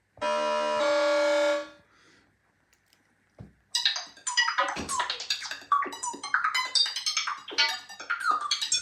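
Arturia MicroFreak synthesizer playing a preset: a held chord of several notes for about a second and a half, then, after a short pause and a click, a fast run of short, sharp-edged notes.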